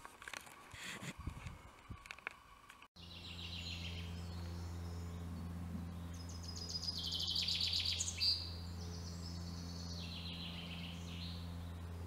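Several songbirds singing in woodland, with repeated chirps and fast trills, over a steady low hum. Before a sudden cut about three seconds in, only scattered clicks and rustles are heard, with no birdsong.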